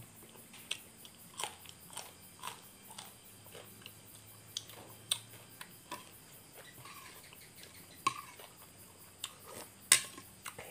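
A man chewing a mouthful of raw-meat larb, with wet mouth clicks and smacks scattered through it. Near the end a spoon knocks against the soup bowl.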